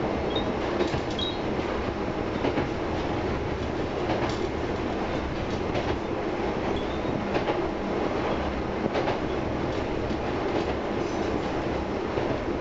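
Inside a Tsugaru Railway diesel railcar running along the line: a steady running rumble from the car, with a clack every second or two as the wheels pass over rail joints.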